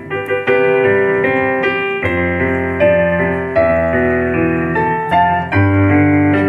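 Keyboard music in a piano voice: slow, sustained chords with a deep bass line coming in about two seconds in, accompaniment for a song the crowd is about to sing.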